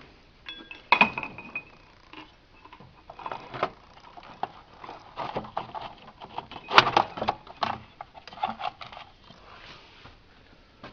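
Irregular knocks, clicks and light rattles of things being handled and moved at close range, with a short squeak about a second in and the sharpest knock near the middle.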